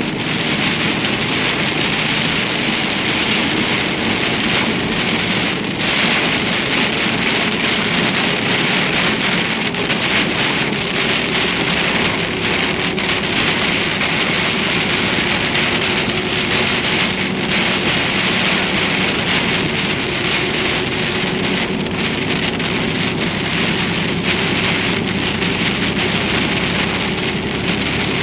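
Heavy rain pelting a moving vehicle's windshield and roof, a steady dense hiss with scattered drop ticks, over a low steady hum of engine and road.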